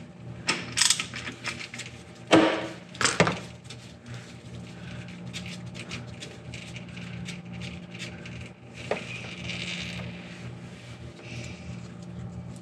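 Hand tools working the transfer case drain plug on a Toyota Land Cruiser: two sharp metal knocks a little over two and three seconds in, then light ticking and clicking as the plug is worked loose. Near the end old transfer case oil starts running into a plastic drain pan.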